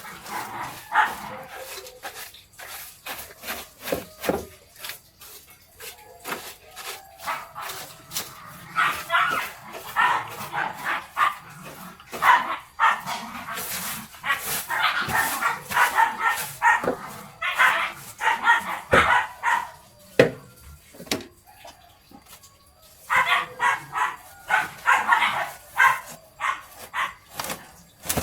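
A dog barking and yipping repeatedly in clusters, over scattered sharp knocks and clicks.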